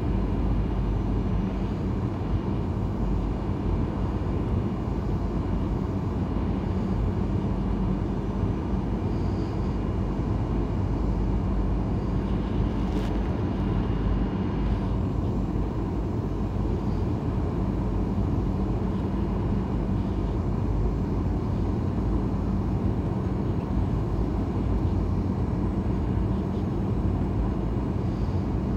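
Boeing 737 cabin noise on the landing approach: a steady rumble of engines and airflow with a constant low hum, heard from inside the cabin.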